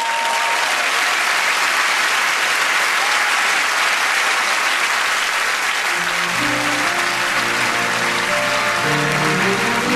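Theatre audience applauding. About six seconds in, instrumental music starts up under the clapping.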